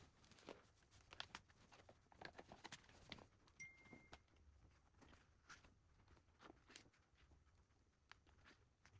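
Near silence with faint scattered small taps and clicks, and a brief faint beep about three and a half seconds in.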